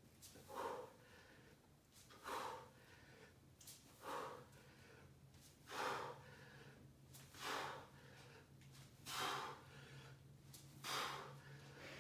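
A man breathing hard with the effort of push-ups, one forceful breath about every second and a half in time with the reps, about seven in all.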